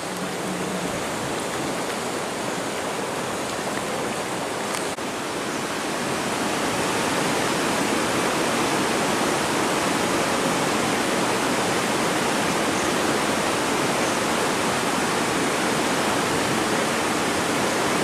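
River rapids rushing, a steady noise of white water pouring over rocks that grows a little louder after about six seconds.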